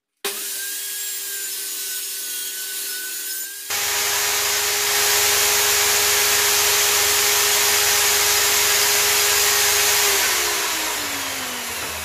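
Erbauer table saw running with a steady whine. About four seconds in it turns louder and rougher as it cuts through pine. Near the end the saw is switched off and the whine falls in pitch as the blade spins down.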